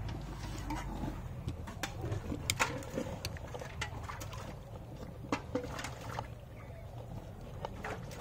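A cow being milked by hand: irregular squirts of milk striking the pail, with a faint low rumble that dies away about a second in.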